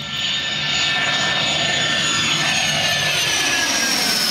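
Twin turbofan engines of a Bombardier Learjet 45 at takeoff power as the jet climbs out overhead: loud jet noise that builds in the first half second. A high whine runs through it and slides steadily down in pitch as the aircraft passes and moves away.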